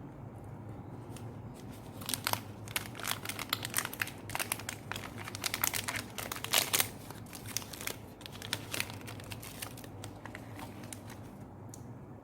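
Crinkling and rustling in a dense flurry of sharp clicks, starting about two seconds in and dying down after about eight seconds.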